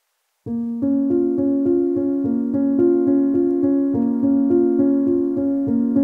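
Background classical piano music starts abruptly about half a second in and goes on as a steady figure of repeated notes, about four a second.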